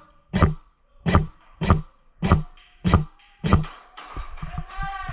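Music with a steady drum beat, about six hits spaced evenly a little over half a second apart. After the beat stops, a pitched melodic sound comes in near the end.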